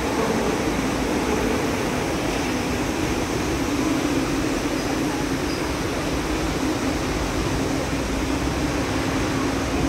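Steady city background noise: an even rushing hiss with a constant low hum underneath, from street traffic.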